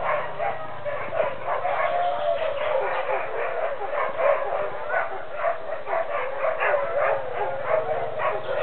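Sled huskies barking and yipping in a dense, overlapping chorus, with wavering whines and howls running through it.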